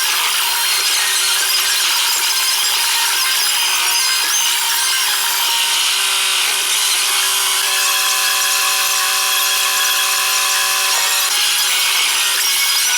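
TYM 394 compact tractor running at work, heard from inside the cab: a steady, hissy mechanical drone, with a steady humming tone standing out for about three seconds past the middle.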